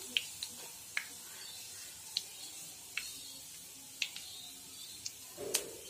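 Hot deep-frying oil in a kadai sizzling with a soft steady hiss, broken by a sharp crackle about once a second, as a batch of vegetable pakodas drains in a wire strainer held just above it.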